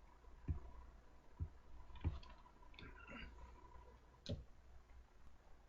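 A few separate light knocks and clicks of small hardware being handled and fitted: cam nuts and screws going onto a plastic Speed Tie mounting unit on a personal watercraft.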